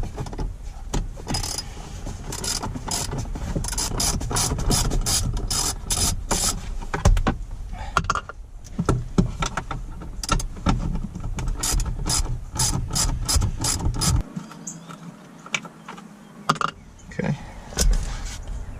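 Socket-wrench ratchet clicking as it is worked back and forth to loosen a 10 mm bolt through two linked extensions, in two long runs of about three clicks a second.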